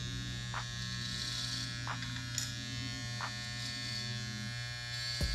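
Corded electric hair clippers buzzing steadily as they cut through hair, with a few faint clicks along the way.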